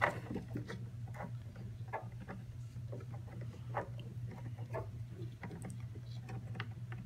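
Small irregular plastic clicks and taps as an RC jet boat's steering link rod and ball end are worked into place by hand, over a steady low hum.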